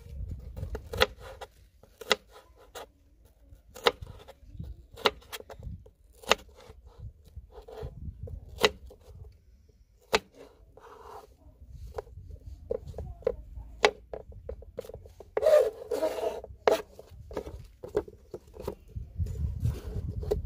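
Kitchen knife cutting through raw potato and tapping down on a plastic cutting board, a sharp tap about once a second as each strip is sliced off. There is a busier run of knocks and scraping about fifteen seconds in, over a low rumble.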